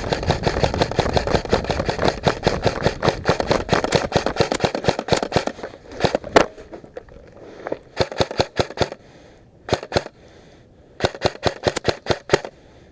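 Airsoft electric guns firing rapid full-auto bursts: one long continuous burst lasting about five seconds, then several shorter bursts with short pauses between them.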